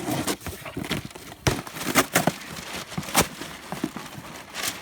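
A cardboard package being torn open by hand: a run of sharp snaps and rips with rustling and crinkling of packing between them.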